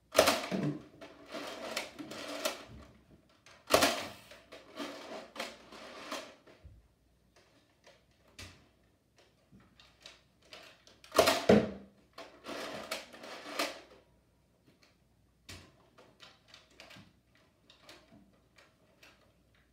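Nerf foam-dart blasters clacking: three loud bursts of mechanical clatter, each trailing off in rattling clicks over about two seconds, then scattered lighter clicks.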